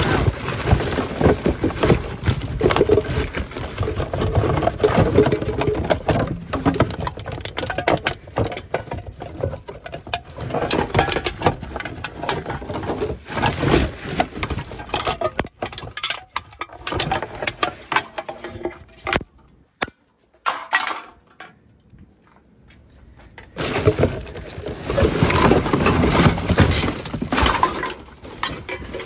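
Trash being rummaged through in a plastic wheelie bin: plastic packaging and bags rustling and crinkling, with small clinks and knocks. It dies down for a few seconds past the middle, then starts again.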